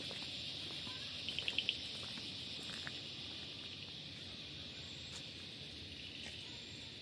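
Steady high-pitched chorus of insects, with a quick run of about five sharp bird notes a little over a second in.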